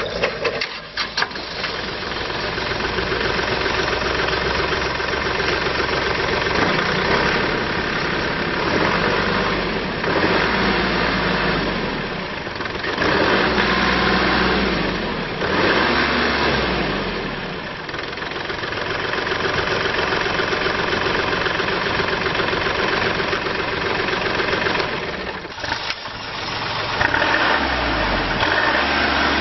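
2015 Kubota L3301D tractor's three-cylinder diesel engine starting with a few sharp knocks at the outset, then running, its speed and loudness rising and falling several times.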